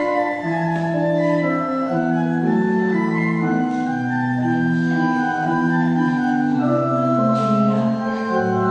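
Organ postlude: slow held chords in several parts over a bass line that steps to a new note about once a second.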